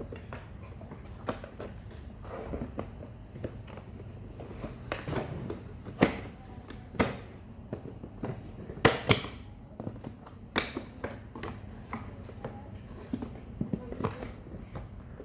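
Irregular clicks and knocks of toy castle parts being handled and fitted together, the sharpest about six, seven, nine and ten and a half seconds in.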